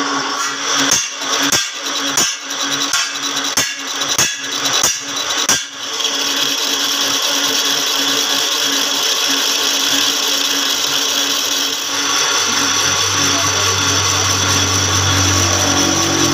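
Metal lathe turning a steel part, the cutting tool scraping the metal with a steady hiss and a few held tones. For about the first six seconds a run of sharp clicks comes through at irregular intervals; about twelve seconds in a low hum joins.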